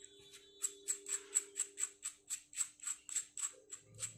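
Soft background music: a steady ticking beat of about four ticks a second, starting just over half a second in, over a held low note.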